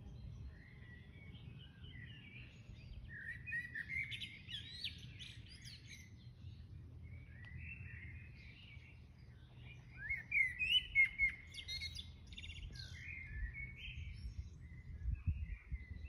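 Songbirds singing outdoors: bouts of quick chirping, twittering phrases, loudest about two thirds of the way through, over a steady low rumble.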